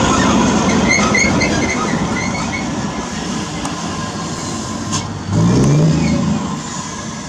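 Scania truck's diesel engine with a straight-pipe exhaust running, its sound fading over the first few seconds, then revving up with a rising pitch about five seconds in.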